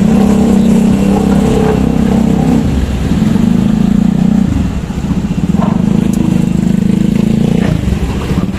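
Motorcycle engines running at low speed close by, the engine note dropping briefly about three times.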